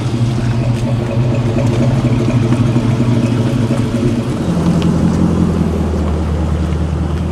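Muscle car V8 engine running steadily. About four seconds in, its note drops lower and holds there.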